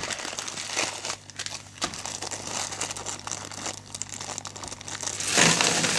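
Thin plastic bags crinkling as a double-bagged bag of beads is opened. About five seconds in, a louder rushing rattle as the beads, some of them glass, pour out of the bag into a cardboard box.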